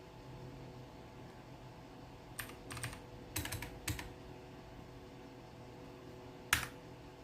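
Keystrokes on a mechanical keyboard with clicky blue switches: a few quick clicks in two short clusters a couple of seconds in, then one louder single keystroke near the end.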